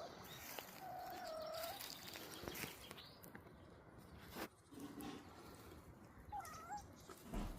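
A kitten mewing: one long wavering mew about a second in and a couple of short mews near the end, with a few faint knocks between.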